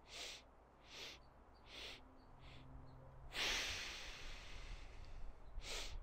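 A man breathing in a breathwork exercise: short, sharp sniffs in through the nose, about one a second, making up a stepped five-part inhale. About three seconds in comes a long exhale that fades away, and a fresh sniff starts the next inhale near the end.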